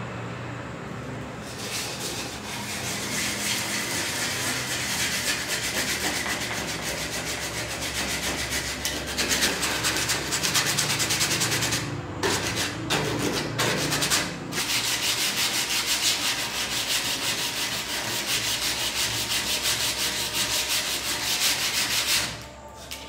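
Sandpaper rubbed by hand over a wooden board in quick back-and-forth strokes. It starts about a second and a half in, breaks off briefly twice near the middle, and stops just before the end.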